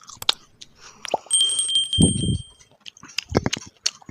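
Close-miked eating of crispy paratha: crackly crunches and wet mouth clicks, with a few soft chewing thuds. About a second in, a clear high ringing tone sounds and holds for about a second and a half, like a clink.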